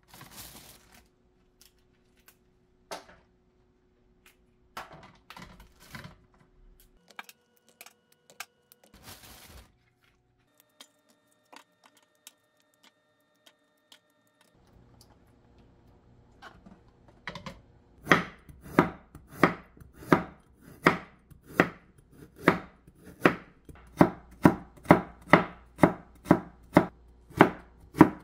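A knife chopping carrots into thin strips on a wooden cutting board, in steady, even strokes about two a second, starting a little past halfway. Before that, faint clicks and plastic rustling as a plastic colander and bag of peppers are handled.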